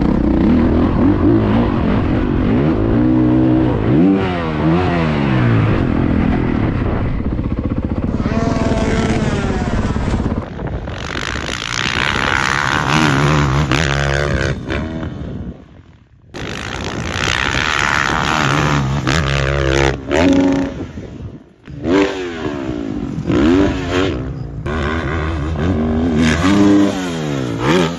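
Dirt bike engines revving up and down through the gears as riders accelerate along trails and up a hill. The sound drops out suddenly twice, about halfway through and again a few seconds later.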